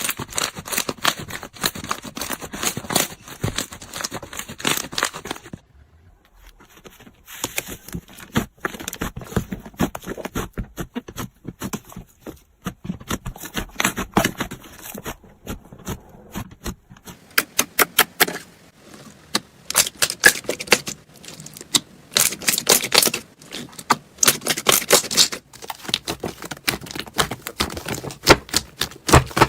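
Slime being squeezed, poked and stretched by hand, giving rapid crackling clicks and pops. There is a short quieter gap about six seconds in, and the clicking turns sharper and denser from around seventeen seconds on.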